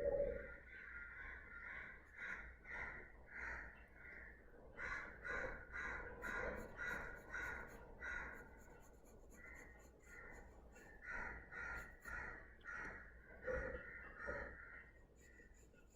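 Pencil strokes on drawing paper, a steady scratchy rhythm of short back-and-forth strokes about two a second as lines are drawn and shaded. A soft knock sounds right at the start and again about three-quarters of the way through.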